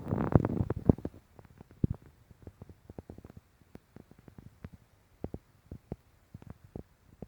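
Underwater sound: a short burst of rushing, popping noise at the start, then scattered sharp clicks and ticks, a few per second.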